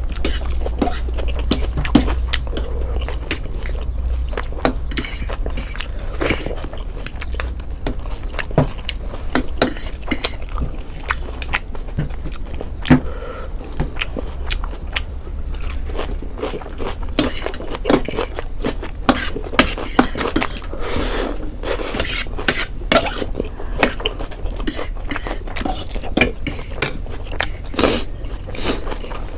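Close-up eating sounds: many small clicks and clinks of utensils against bowls and plates, with chewing, over a steady low hum.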